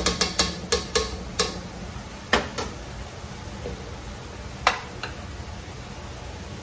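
A plastic spoon and spatula clicking and knocking against cast iron skillets while food is stirred: a quick run of taps in the first second and a half, then a few single knocks while browning ground beef is broken up. A low steady sizzle from the skillets runs underneath.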